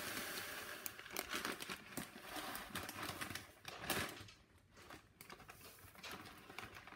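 Plastic cereal bag crinkling and dry Rice Krispies rustling as they are scooped into a glass measuring cup, with many small crackles and clicks. It grows quieter after about four seconds.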